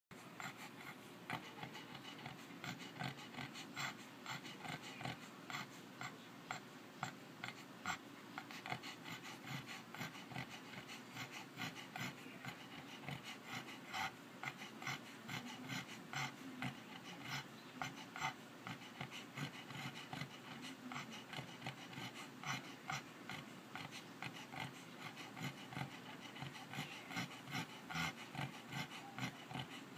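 A sleeping pet snoring, heard as a continuous run of short crackly sounds, several a second.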